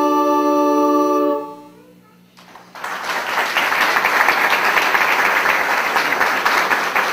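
Recorder ensemble holding the final chord of a piece, which stops about a second and a half in and dies away in the hall's reverberation. After a brief pause, audience applause starts and carries on.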